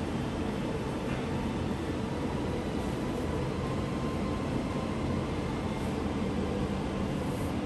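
Steady low rumble with a hiss above it, even and without distinct events.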